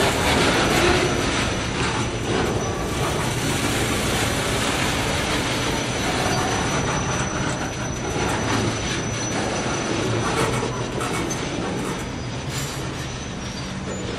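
A train rolling past, its wheels running on the rail with a steady clatter and a thin, steady high-pitched wheel squeal over it; it eases off a little near the end.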